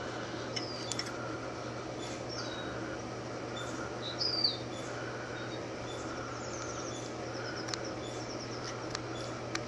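Birds chirping, with short high chirps scattered throughout and one louder falling chirp about four seconds in, over a steady low hum.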